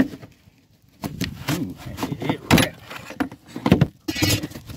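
Aluminum ribs of a Sportspal canoe being worked loose and popped out by hand. A sharp click comes at the start, and from about a second in there is a string of knocks and metallic rattles. Near the end there is a brushing rustle as debris is swept off the floor.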